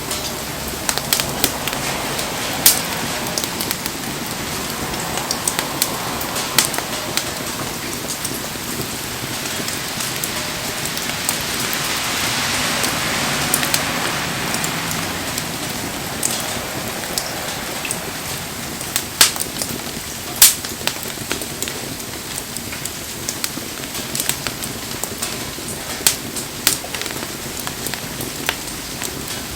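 Wood bonfire crackling and popping in the rain over a steady hiss of rainfall. Sharp pops are scattered throughout, and the hiss swells in the middle.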